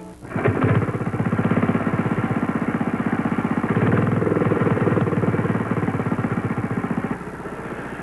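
Lawn mower cutting grass: a rapid, even clatter that drops away about seven seconds in.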